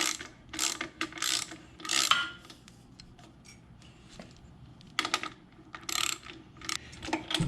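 Hand ratchet wrench clicking in quick strokes as it backs out an exhaust mounting bolt on a Honda Rebel 500. It comes in two spells of a couple of seconds each, with a pause between them.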